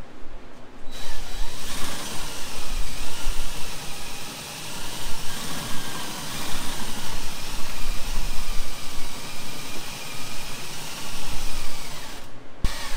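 Cordless drill running steadily to drive a Fleximount GL1 ceiling lift's winch, lowering its wire storage rack. It starts about a second in and cuts off shortly before the end.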